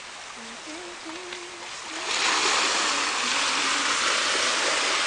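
Sea surf rushing and washing over the shore, coming in suddenly and loud about two seconds in as a steady hiss. Faint voices are heard before it.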